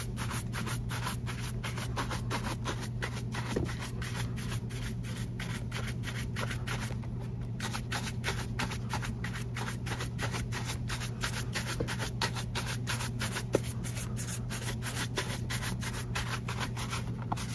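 Leather shoe upper being buffed with rapid back-and-forth strokes, about four or five a second, to bring up a gloss on cleaner-conditioner that has set. The strokes break off briefly about seven seconds in, over a steady low hum.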